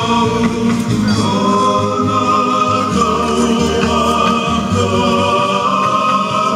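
Hula music: several voices singing together in long held notes over a steady accompaniment.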